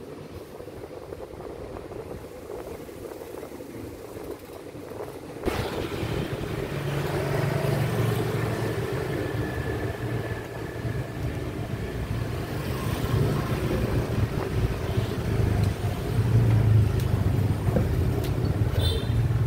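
Street ambience with motor traffic: a steady low rumble of passing vehicles. The level jumps suddenly about five and a half seconds in and stays louder after that.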